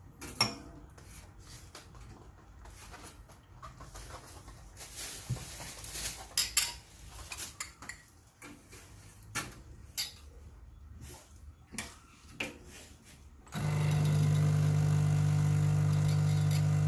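Scattered light clicks and knocks of espresso gear being handled. About three-quarters of the way through, the Quick Mill Rubino's vibratory pump starts with a loud, steady hum: water is being flushed through the E61 group head to warm it up.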